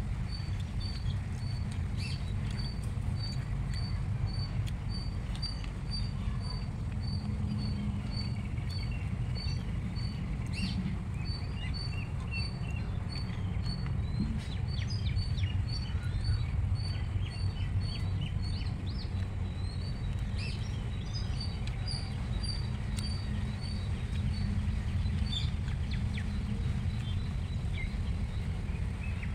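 Birds calling outdoors: one repeats a short high note about twice a second, and others chirp in between, over a steady low rumble.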